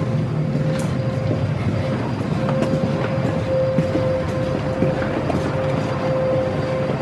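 Steady mechanical rumble with a constant mid-pitched hum and a few faint taps.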